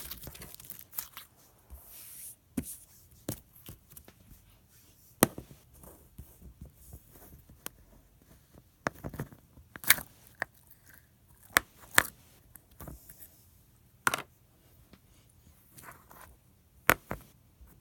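Homemade slime being squeezed and pressed by hand, giving irregular sharp clicks and pops with short quiet gaps between them.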